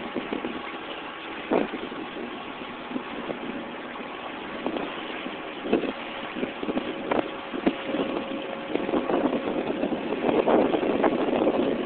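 A small open boat's motor running at a steady speed, with the hull slapping through small waves in irregular knocks and splashes that grow busier and louder near the end.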